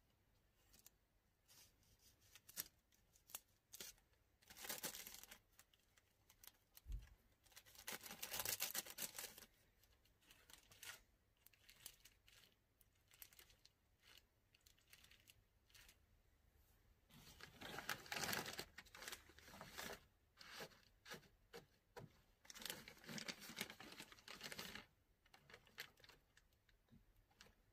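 Clear plastic bag crinkling and rustling as bundles of incense sticks are slid into it and the filled bag is pressed flat. It comes in several bursts of a second or two, the loudest about eight and eighteen seconds in, with light clicks and taps between.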